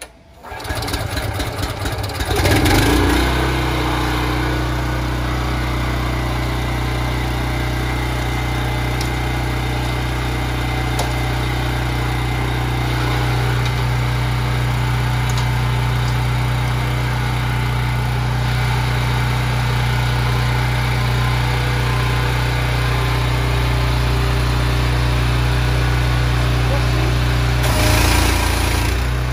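Honda petrol engine of a 3,600 PSI pressure washer pull-started on its recoil cord: it catches at once, rises to speed over the first few seconds and then runs steadily. Near the end the high-pressure jet from the lance adds a hiss.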